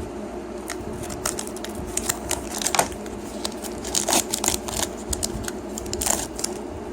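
Foil Pokémon booster pack wrapper being opened, crinkling, with sharper rips about three, four and six seconds in.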